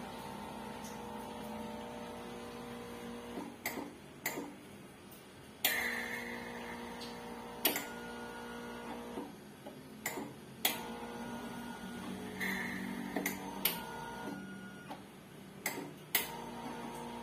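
Mindray BC-2600 hematology analyzer running its tubing test: a steady motor hum with a pitched whine, broken by sharp mechanical clicks every second or two, some in quick pairs.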